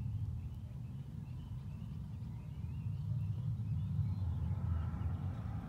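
Outdoor background: a steady low rumble, with faint high bird chirps in the first half.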